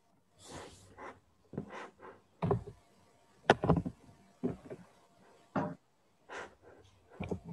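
A string of short, irregular knocks and rubbing noises, the loudest about three and a half seconds in, picked up through a video-call microphone.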